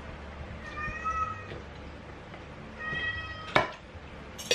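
A cat meowing twice, short high calls about a second apart from a sharp snap, with a sharp snap or crack, the loudest sound, shortly after the second meow and another near the end.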